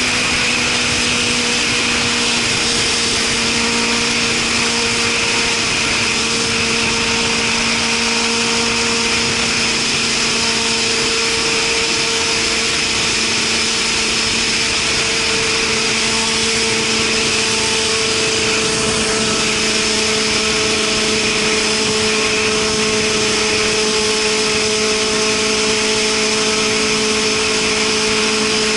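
Suzuki Katana motorcycle with a Super Combat aftermarket exhaust running at a steady, nearly unchanging engine speed, as when cruising, over a constant rush of wind noise.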